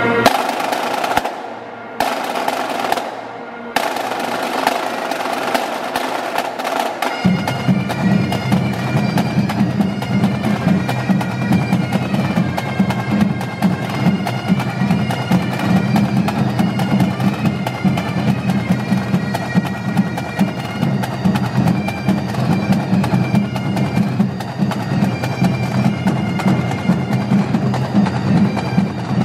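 Rope-tensioned field drums open with rolls and beats, broken by two short pauses, and then about seven seconds in a group of bagpipes strikes up, a steady drone under the chanter melody, playing together with the drums.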